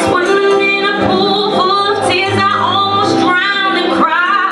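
A woman singing an R&B ballad live over a backing track, holding long notes that bend and waver in pitch.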